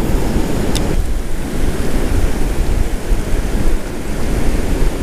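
Ocean surf washing in around the shallows, with wind buffeting the microphone: a steady, loud rush heavy in the low end.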